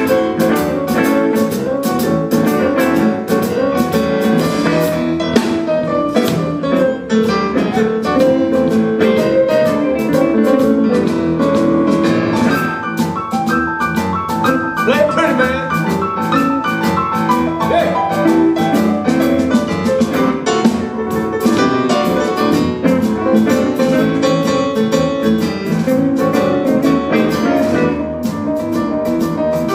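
Live Chicago blues band playing an instrumental stretch, with no singing: piano, electric guitar, bass and a drum kit keeping a steady beat.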